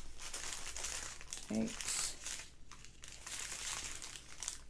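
Small plastic bags of diamond-painting drills crinkling on and off as they are handled and shuffled.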